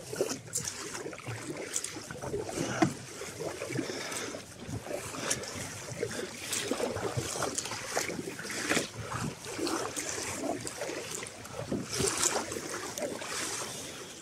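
Sea water splashing and sloshing around a sit-on-top kayak, with irregular splashes from the paddle.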